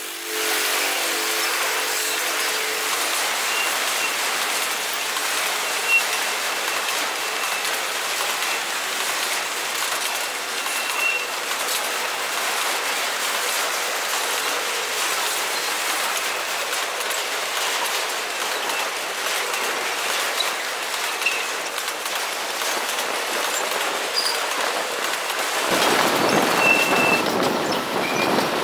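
Freight cars rolling past at close range, tank cars and then empty grain hopper cars: a steady rushing clatter of steel wheels on rail, with brief high wheel squeals now and then and a single sharp knock about six seconds in. A deeper, louder rush sets in near the end.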